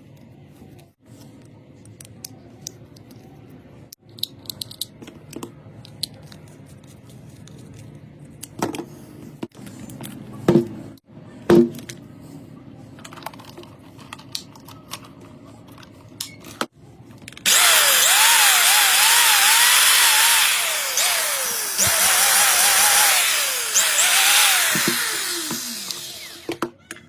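Faint handling clicks and two sharp knocks, then about two-thirds of the way in an electric drill starts up and runs loudly for about nine seconds. Its motor whine rises and falls repeatedly as the speed changes, before it cuts off. This is the drill being run with its repaired power cord.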